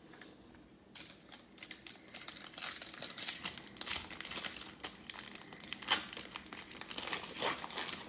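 A trading-card pack wrapper being torn open and crinkled by hand: dense, irregular crackling that starts about a second in and keeps going.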